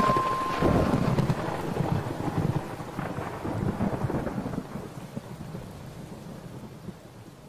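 Thunder rolling after a clap: low rumbles in several waves that slowly die away.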